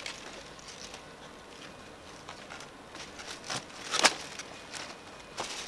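Fresh banana leaves being sliced with a knife and handled: rustling and crackling of leaf with scattered sharp snaps, the loudest about four seconds in.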